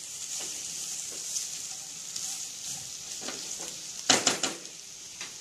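Chicken strips and shredded cabbage sizzling in hot oil in a kadhai while being stirred with a silicone spatula, a steady high hiss. About four seconds in comes a quick run of louder scrapes and knocks as the spatula works against the pan.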